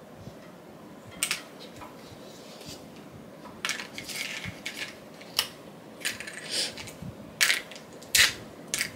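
Press-on nails and their plastic packaging being handled: a string of sharp clicks, with crinkling in between.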